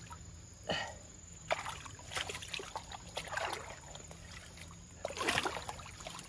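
Hands and an arm moving through shallow water, giving a few short, irregular sloshes and splashes.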